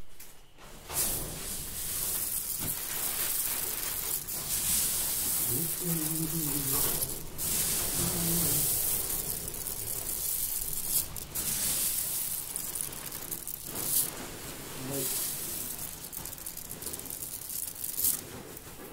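Dry green cardamom pods rustling as a hand stirs and scoops them and lets them run back into a woven plastic sack, with the sack's plastic crinkling; a steady hiss-like rustle broken by several sharper crackles.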